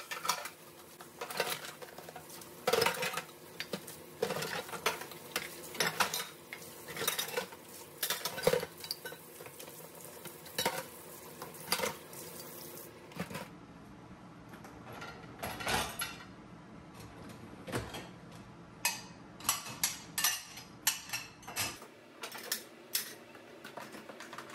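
Plastic containers and dishes clattering in a stainless steel sink as they are rinsed under a running kitchen tap. About halfway in the running water stops, and dishes clink as they are set into the dishwasher racks.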